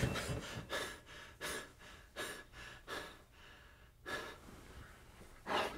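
A man breathing hard in quick, short breaths after waking with a start. The breaths come fast at first, then slow and fade, with one louder gasp near the end.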